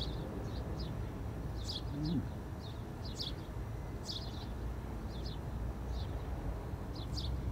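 A small bird chirping repeatedly: short, high, falling chirps, often two or three together, about once a second, over a steady low background hum.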